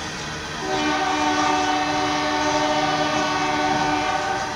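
Nathan K3LA five-chime air horn on a BNSF SD70MAC locomotive sounding one long blast, starting about half a second in and cutting off just before the end. It plays a sour, out-of-tune chord that is roughly E-flat minor. Under it is the steady rumble of the empty coal train rolling by.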